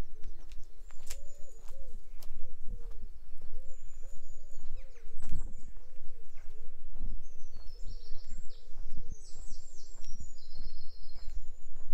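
A pigeon cooing in a long run of low, rounded notes, over the steady thud of walking footsteps. In the second half a small songbird adds high, quick chirps and trills.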